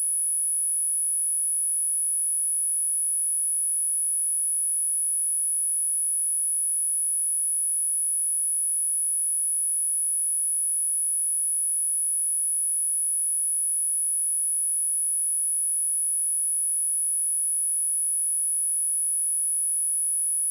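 A steady 11046 Hz sine tone, a single very high-pitched whistle held at a constant level, with nothing else heard.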